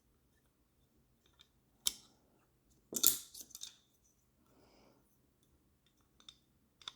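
Carbon-fibre quadcopter frame parts clicking and clattering as they are handled and fitted together: one sharp click about two seconds in, a louder clatter of several knocks around three seconds in, and a couple of light clicks near the end.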